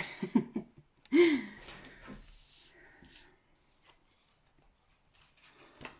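Tarot cards being handled and shuffled, a papery rustle that runs for about two seconds, with a few short murmured voice sounds at the start.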